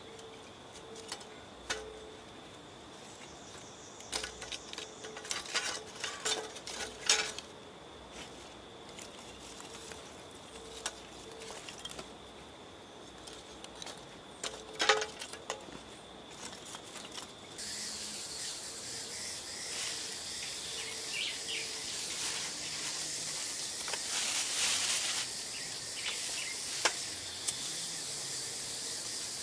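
Lumps of charcoal clinking and clattering as they are dropped and arranged on the grate of a metal coal pot, in scattered bunches, over a steady high insect trill. In the second half, a steady hiss comes in and stays.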